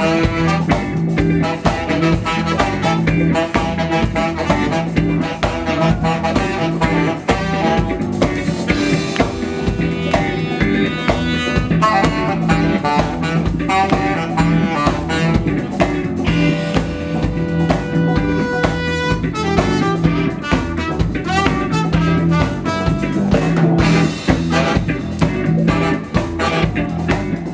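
Live band playing: saxophone over electric guitar and a drum kit keeping a steady beat, with long held horn notes about two-thirds of the way through.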